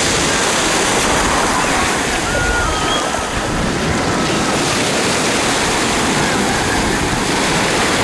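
Small sea waves washing up and draining back over a pebble beach: a steady surf hiss.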